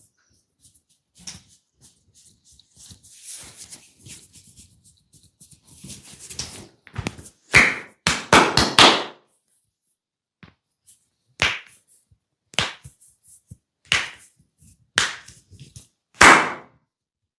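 Massage strokes on a client's body: scratchy rubbing at first, then a quick flurry of sharp slaps, followed by single slaps about a second apart, the last one the loudest.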